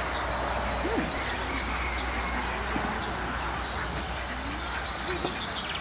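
Assorted birds calling: many short, high chirps and a few lower gliding calls, over a steady low hum.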